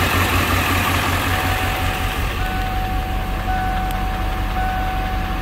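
1997 Ford F-250's 7.3-litre Power Stroke V8 turbo-diesel idling with a steady low rumble. From about a second in, a warning chime beeps about once a second over it.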